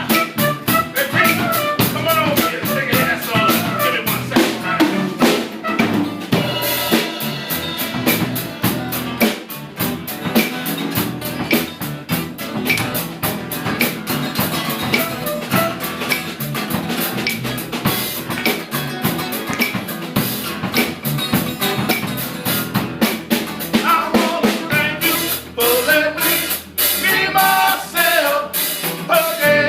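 A live band playing, with a drum kit keeping a steady beat under the other instruments.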